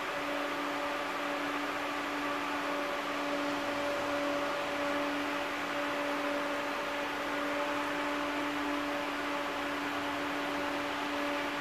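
Steady hum inside the passenger cabin of a TVZ 71-931 Vityaz-M tram: a constant tone over an even hiss from the tram's onboard equipment, with no change in pitch.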